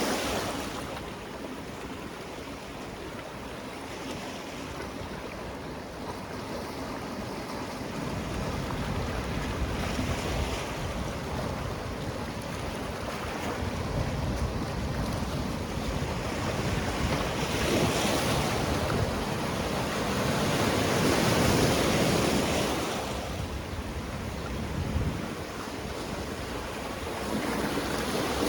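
Sea waves washing onto a rocky shore, swelling and receding in slow surges, the biggest about two-thirds of the way through. Wind on the microphone.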